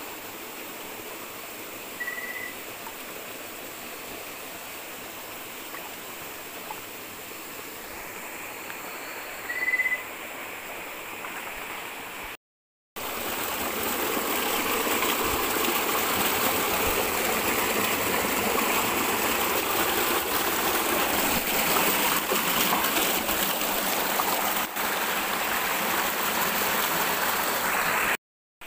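Stream water running steadily, with two short high chirps, one about two seconds in and one about ten seconds in. After a brief dropout about twelve seconds in, the water is louder and closer, with a fine crackle through it.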